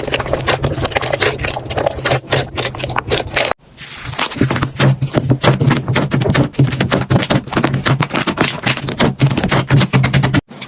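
Slime being squished and pressed by hand, with dense quick crackling clicks and pops over a low hum. The sound breaks off sharply about three and a half seconds in, then starts again with the same crackling.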